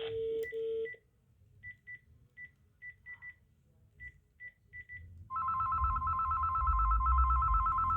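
Panasonic KX-T telephone: a low beep of about a second, then a run of short high key beeps. About five seconds in, its ringer starts a steady, warbling two-tone electronic ring.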